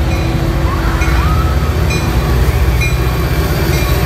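Metra commuter train's diesel locomotive passing close, a loud steady low engine rumble with rail noise.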